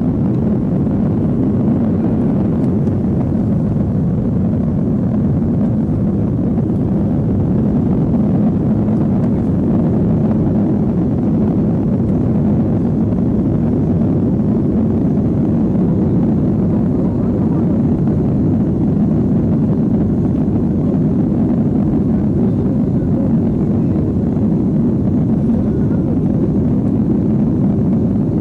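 Steady, loud rumble inside the cabin of a Boeing 757-200 rolling fast on the ground: jet engine noise and the roar of the airframe and wheels, with no change in level.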